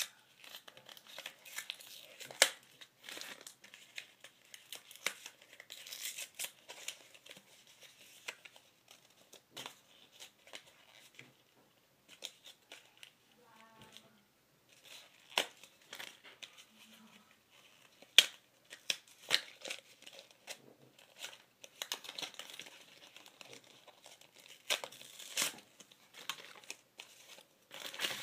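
Plastic packaging of a Shopkins toy basket crinkling and tearing as it is opened by hand, with irregular sharp crackles and a few louder snaps.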